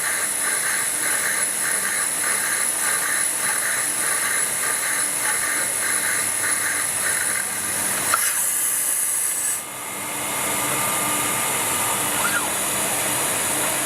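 NC lathe running: a steady mechanical hiss with a pulsing beat at about two a second for the first half. The sound changes about eight seconds in, dips briefly near ten seconds, then settles back into a steady hiss.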